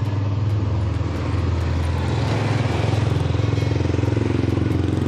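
Motorcycle engine idling steadily close by, a constant low hum with a fast even pulse.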